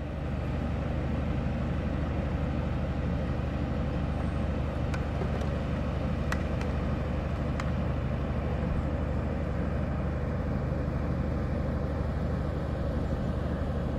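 An engine running steadily, a constant low drone, with a few faint clicks about five to eight seconds in.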